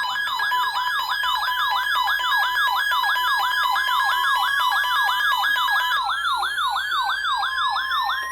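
Electronic siren in yelp mode, its pitch sweeping rapidly up and down about three times a second over a steady tone. From about halfway in, a second tone glides slowly upward.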